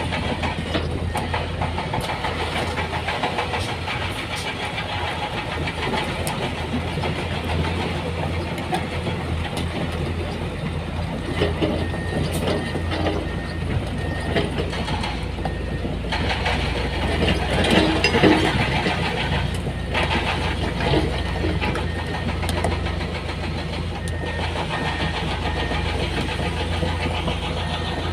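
Heavy diesel engines of a dump truck and a crawler excavator running steadily, swelling louder about two-thirds of the way through, with a high repeated beeping at times.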